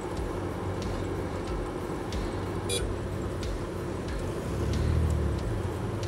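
Claas CT-40 paddy harvester running steadily, a low diesel engine hum that swells louder about five seconds in. A brief high squeak comes a little before halfway.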